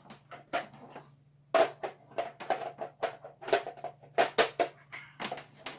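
A quick, uneven run of sharp knocks and taps, starting about a second and a half in and going on to the end, over a steady low hum.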